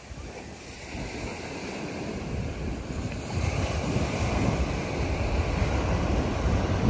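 Wind gusting against the microphone, a rushing and rumbling noise that grows steadily louder.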